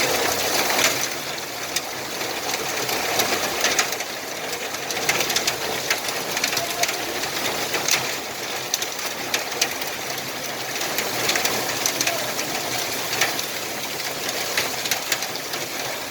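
Heavy rain falling, a steady hiss with many sharp drop impacts ticking on hard surfaces.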